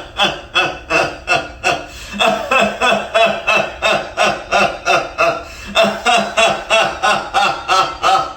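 Rhythmic laughter-yoga laughter: short voiced "ho" and "ha" bursts, about three a second, in runs broken twice by brief pauses.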